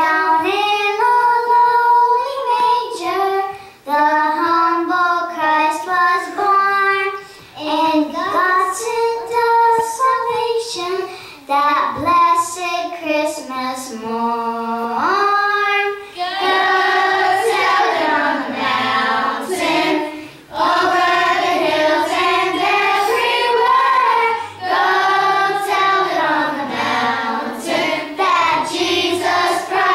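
Children singing a song unaccompanied into a microphone, in phrases broken by short pauses for breath.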